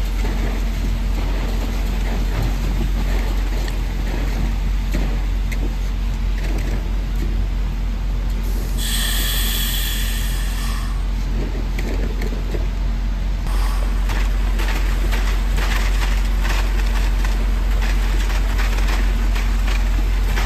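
Truck-mounted concrete boom pump running steadily with a low engine drone as it pumps concrete down the end hose. A high-pitched squeal lasts about two seconds, starting about nine seconds in. The pump gets louder about halfway through, with many short knocks.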